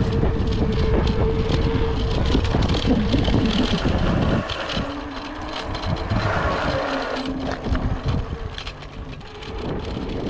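Electric bike ridden along a concrete path: wind buffeting the chest-mounted microphone, with tyre noise and a steady whine. About four seconds in, the wind rumble eases and the whine drops to a lower pitch.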